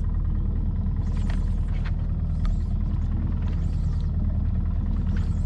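A boat's motor running steadily, a low, even hum with a fine rhythmic pulse, with a few faint clicks over it.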